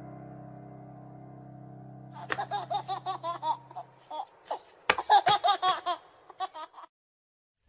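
The last sustained chord of a song fades out. About two seconds in, a run of quick, high-pitched giggling laughter starts over it and goes on for about five seconds, stopping shortly before the end.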